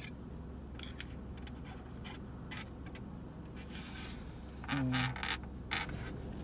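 Plastic fork scraping and clicking against mussel shells, with a styrofoam takeout container creaking, as mussels are picked out. A brief louder sound about five seconds in, over a steady low hum.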